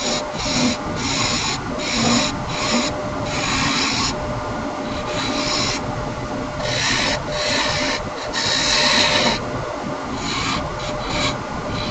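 Wood lathe running with a steady hum while a turning tool cuts the spinning laminated wood in repeated short scraping passes, some lasting about a second.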